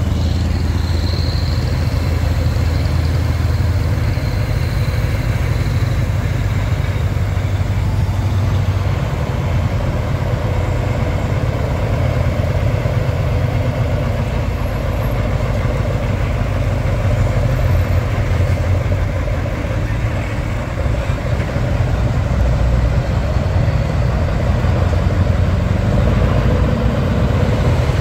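Vintage truck's diesel engine running, a steady deep rumble.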